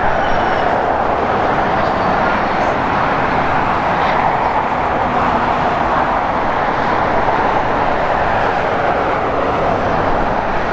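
Airbus A350-900's Rolls-Royce Trent XWB turbofan engines heard from the ground as the jet climbs away after takeoff, a steady, even jet noise.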